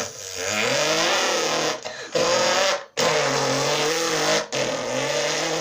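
A boy's voice imitating a modded Corvette's engine revving with his mouth, the pitch rising and falling. It comes in four stretches with brief breaks between them.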